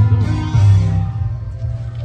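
Loud Yosakoi dance music with a heavy bass line accompanying a team's street performance.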